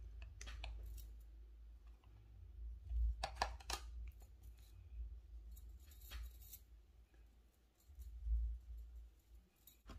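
Scattered clicks and taps from handling makeup, a plastic powder compact and a brush, over a low rumble of handling bumps. The loudest cluster of clicks comes about three seconds in, with another a little after six seconds.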